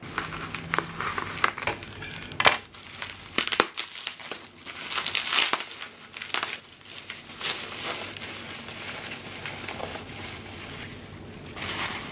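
Plastic bubble wrap crinkling and rustling in irregular bursts as it is cut with scissors and pulled off a small glass tumbler, with a few sharp clicks in the first few seconds.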